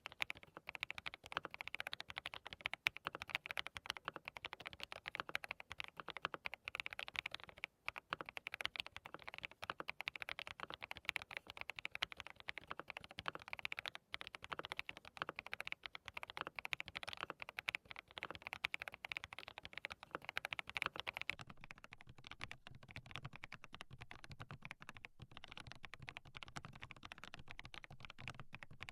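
Continuous fast typing on a DT35 87-key custom mechanical keyboard with hand-lubed linear switches: Haimu Sea Salt switches, then, from about two-thirds of the way through, Haimu Smoky Pink V2 switches, sounding deeper.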